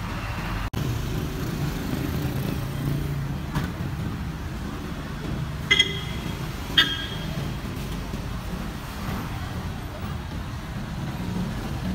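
Steady street traffic: engines of passing cars, a motorcycle and a jeepney running with a low rumble. Two short beeps stand out above it about six and seven seconds in.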